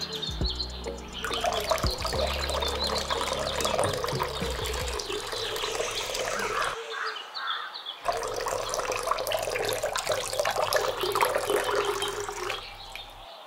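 Water from a miniature hand pump running and splashing.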